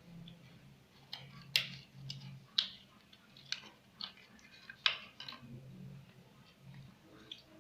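Slime being squeezed and worked by hand, giving irregular sticky pops and clicks. The loudest come about one and a half, two and a half, and five seconds in.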